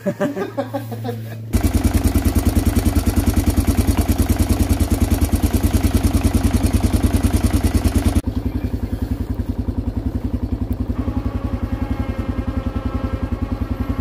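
An engine idling steadily with a rapid, even thumping pulse, starting about a second and a half in; it drops abruptly to a quieter level about eight seconds in and keeps idling.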